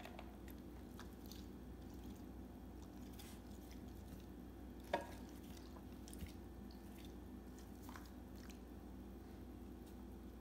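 Faint wet clicks and crackles of ice cubes in a bowl being licked and nudged by a Bengal cat, with one sharper clink that rings briefly about five seconds in, over a low steady hum.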